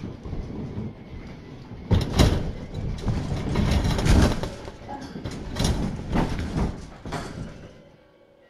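Rustling, scraping and knocking of things being handled, a string of uneven noisy bursts with a few sharp knocks, stopping shortly before the end.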